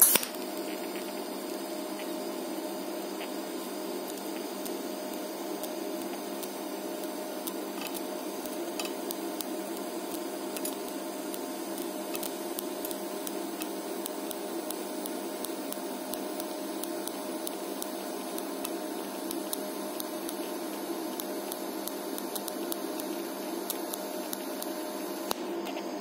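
DC TIG welding arc on 4 mm 304 stainless steel plate, struck with a sharp click and then running as a steady hiss and hum with faint crackles while filler wire is fed into the puddle. The arc cuts off about 25 seconds in.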